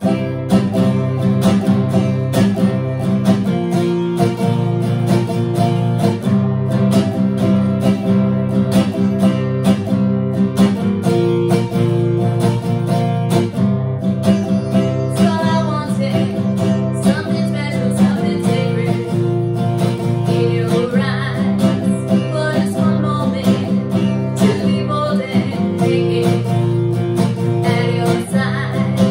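Steel-string acoustic guitar with a capo, strumming chords in a steady rhythm that change every couple of seconds. A woman's singing voice joins in over the guitar in the second half.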